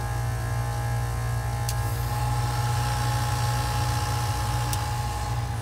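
A Copeland Digital Scroll compressor running with a steady hum. About two seconds in its sound changes as a new steady tone comes in: the change in sound of the digital scroll modulating, its top scroll shifting to vary capacity while the motor keeps a constant speed. Two light clicks are also heard.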